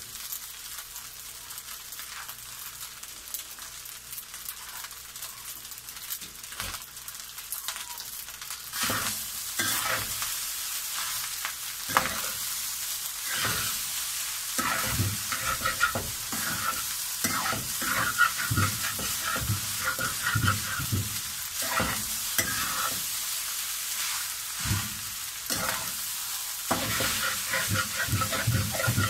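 Crab fried rice sizzling in a pan over a gas burner while a metal spatula scrapes and turns it. For the first several seconds there is mostly a steady sizzle; from about nine seconds in, the stirring strokes come quick and louder, scraping against the pan.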